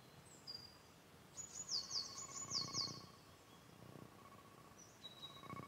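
Songbird chirping outdoors, two quick runs of short chirps that each fall in pitch, about one and a half to three seconds in. Under it is a faint steady tone, which is plausibly the door-seal leak heard through the ultrasonic leak detector's converted signal.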